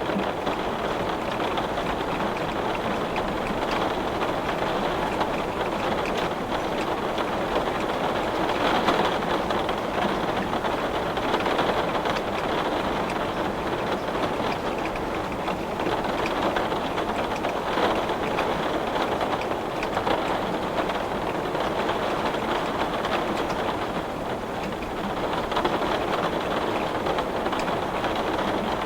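Heavy rain falling steadily on a glass pane, a dense even patter that swells and eases every few seconds.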